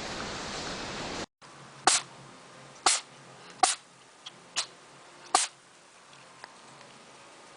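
A rush of breathy noise that cuts off abruptly about a second in, then an animal sneezing five times in quick short sneezes, roughly one a second.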